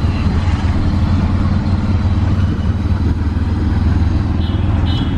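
Auto-rickshaw engine running with a steady low rumble as the rickshaw drives along, heard from inside its open cabin along with road noise.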